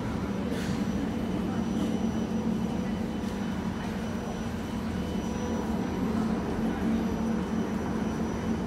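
Kawasaki-CRRC C151B metro electric multiple unit giving off a steady hum and rumble from its electrical equipment and wheels, with a few faint clicks.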